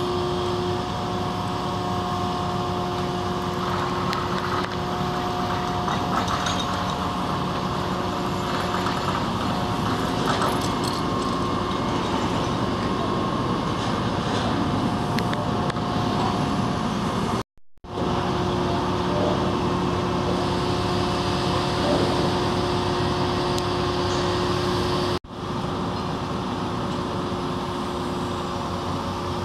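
250-tonne mobile crane's diesel engine running steadily under load while it lowers a 75-tonne boat, a constant drone with a steady whine held over it. The sound cuts out briefly twice.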